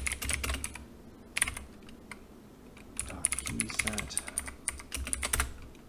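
Computer keyboard typing: runs of quick keystrokes, with a pause of about a second and a half before the clicking resumes.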